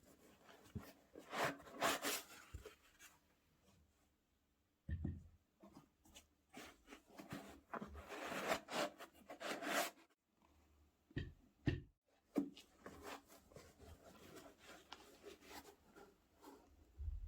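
Hands handling sneakers and their packaging: irregular rustling and rubbing, with a few soft knocks.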